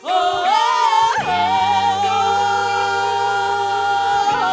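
Gospel worship song sung by a church vocal group: a short rising phrase, then one long held note from about a second in, over steady low instrumental accompaniment.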